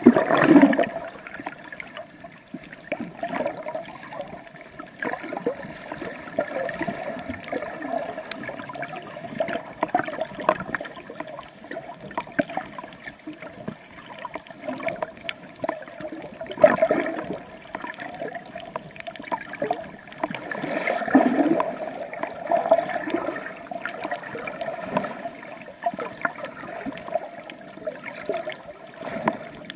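Sea water sloshing and gurgling around a camera carried by a snorkeling swimmer, with a few louder swashes, the strongest right at the start.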